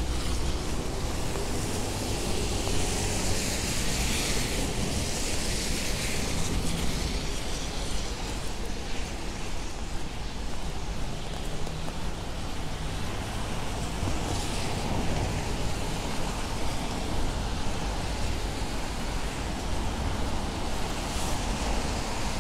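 Rainy city street ambience: a steady rumble of traffic with cars hissing past on wet pavement, the loudest swell of tyre hiss a few seconds in.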